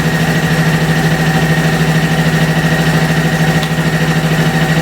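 Air compressor running steadily with a fast-pulsing hum, pumping air into a flat tyre.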